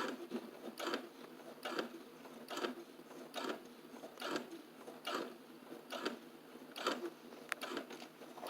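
Sewing machine stitching at a slow speed, with an even clatter a little under once a second, as it back-stitches a fabric strap onto a bag.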